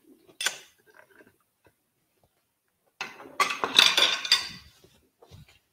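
Ceramic plates, bowls and a spoon clinking and clattering as they are moved about on a kitchen counter. There is a single light knock about half a second in, then a burst of clatter lasting nearly two seconds from about three seconds in.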